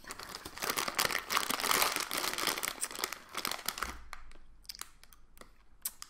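Crinkling of a candy bag and wrappers being rummaged through by hand for about four seconds, then a few light clicks and rustles.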